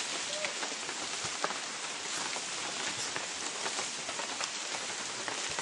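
Steady patter of rain falling on a surface, an even hiss dotted with small drop ticks.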